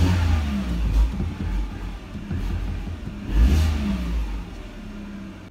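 Car engine revved while the car stands still, with the loudest revs near the start and about three and a half seconds in, the pitch falling back toward idle after each.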